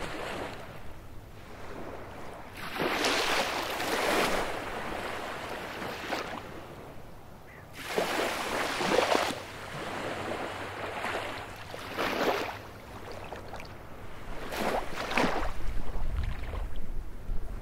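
Baltic Sea surf: waves washing onto a beach, a loud swell of hiss about every three to four seconds with quieter lulls between.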